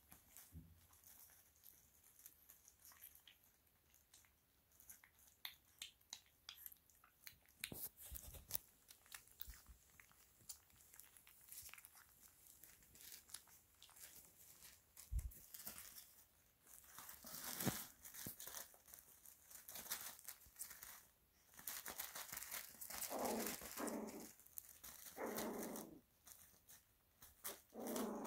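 Italian Greyhound puppies at play, with soft rustling, crinkling and small clicks from the bedding and puppy pads as they move. Several short puppy growls come near the end.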